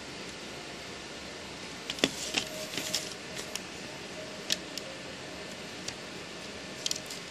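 Brittle honeycomb hash oil and the paper under it being handled: a cluster of light crackles and clicks about two to three and a half seconds in, then a few single clicks, over a steady hiss.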